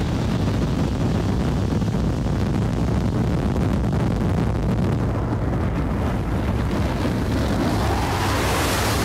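Sound-effect rocket engines of Thunderbird 1 firing for lift-off, a loud, steady, deep rushing roar, with a rising whine gliding up through it near the end.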